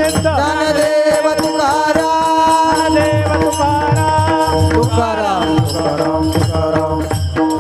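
A male voice singing a Marathi devotional abhang in a melismatic style with long pitch glides, over a steady held drone and a fast, even jingle of hand cymbals (taal). Near the middle the voice sweeps down through a long glide.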